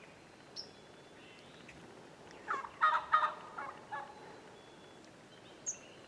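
Wild turkey tom gobbling once, a rapid rattling call lasting about a second and a half, starting about two and a half seconds in.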